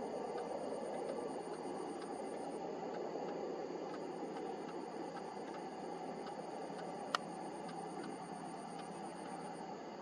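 A high, thin insect trill, like a cricket's, running steadily over a constant low background rush. It breaks off for about a second early on, then resumes until near the end. One sharp click comes about seven seconds in.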